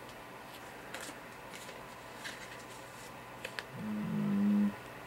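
Foil packet of a card-reader cleaning card crinkling and crackling faintly in the hands as it is handled and opened, a few light crackles spread out. Near the end a man gives a short hummed "mm", the loudest sound.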